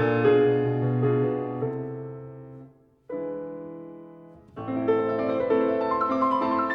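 Background piano music: held chords that die away about halfway through, then a new chord and a run of livelier notes.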